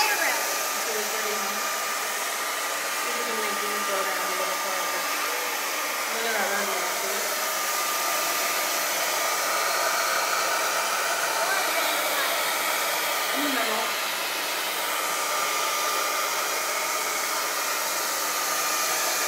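Handheld hair dryer running steadily: a continuous rush of blown air with a faint steady whine from its motor.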